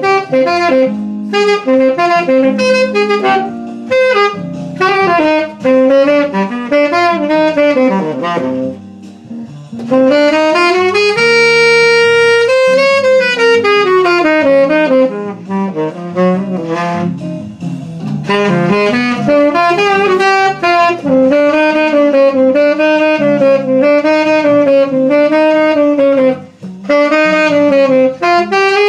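Tenor saxophone playing a jazz line of moving notes, with one long held note near the middle and arching, bending phrases later on.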